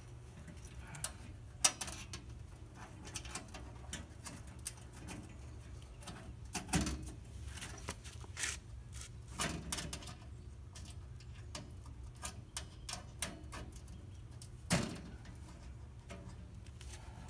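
Scattered light clicks, knocks and rustles from handling a Camp Chef Deluxe Outdoor Oven's lid and fold-out side windbreak panels, with a few louder knocks, over a steady low background hum.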